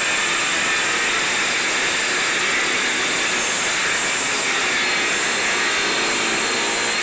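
Angle grinder with a cutting disc running steadily as it cuts through a car's rocker panel. It is biting into a clump of old body filler packed inside the sill rather than sheet steel, throwing up a cloud of dust.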